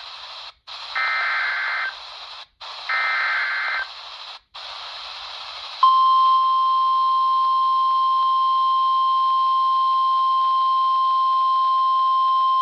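EAS alert on NOAA Weather Radio heard through a weather radio receiver over reception hiss: two short bursts of SAME header data tones, each about a second long and two seconds apart. About six seconds in, the steady 1050 Hz warning alarm tone begins and holds.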